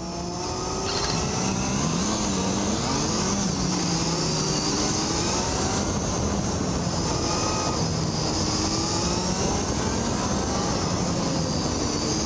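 Onboard motorcycle engine under way, its pitch rising and falling as the rider accelerates and eases off through a run of curves, over a steady rush of wind noise.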